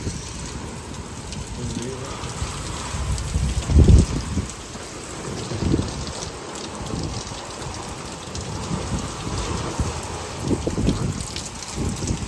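Heavy storm rain pouring steadily, with low rumbling surges of wind or thunder on top; the loudest is about four seconds in.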